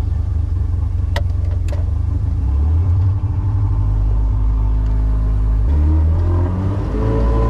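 Outboard motor of a Wooldridge Alaskan boat running under way, its pitch stepping up near the end. Two sharp clicks about a second in.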